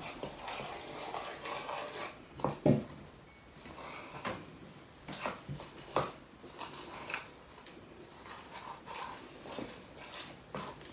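Metal spoon clinking and scraping against a ceramic bowl while stirring cornflour, flour and water into a smooth batter paste, in irregular taps, the loudest about two and a half seconds in.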